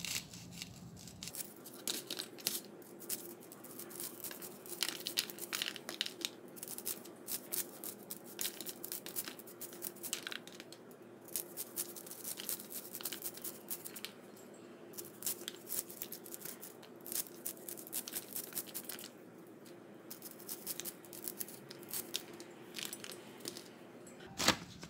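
A large kitchen knife shaving kernels off a fresh corn cob, a quick run of crisp cutting strokes repeated many times, with kernels dropping onto a plastic plate.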